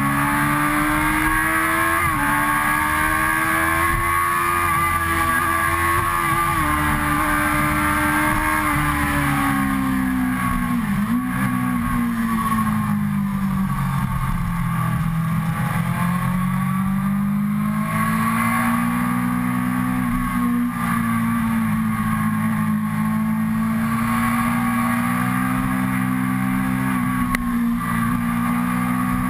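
Suzuki GSX-R sport bike's inline-four engine pulling along on the road, heard from on the bike. The engine note rises and falls with the throttle: a couple of brief dips in the first seven seconds, easing off to its lowest pitch around the middle, then climbing steadily again toward the end.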